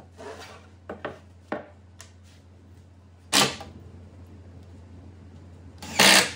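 A few light knocks of a plywood plate being set in place, then a cordless drill/driver running in short bursts as it drives screws into plywood: once briefly about three seconds in and again near the end. A steady low hum sits underneath.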